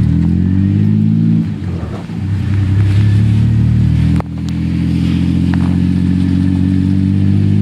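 Engine of a vehicle being driven, running steadily. It eases off briefly about a second and a half in, picks up again, then drops suddenly about four seconds in before settling back to a steady note.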